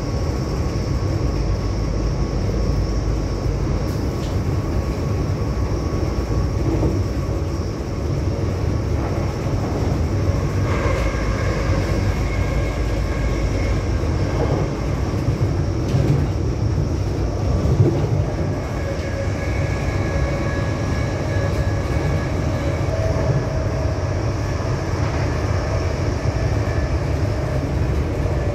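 Class 180 Adelante diesel-hydraulic multiple unit's Cummins engines running with a steady drone. Higher engine tones come in about ten seconds in and again near twenty seconds.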